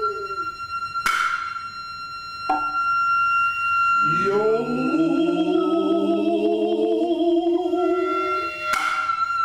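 Noh orchestra (hayashi) music: the nohkan flute holds a high note while the hand drums give two sharp strokes, one about a second in and one near the end. Between them the drummers' calls (kakegoe) are heard, a short one and then a long, wavering drawn-out call.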